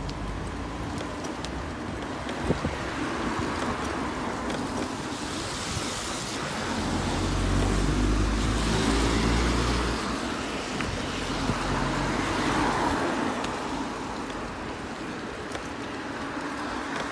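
Cars passing on a wet road, their tyre hiss swelling and fading as each goes by. The biggest pass comes a little before the middle, with a deep rumble under it, and a second, smaller one follows about two-thirds of the way through.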